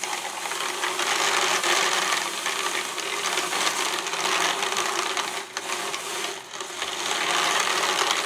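Hand-cranked drum carder turning fast, its carding-cloth drums whirring steadily as wool is fed in and drawn onto the large drum. The whir starts at once and dips briefly twice a little past halfway.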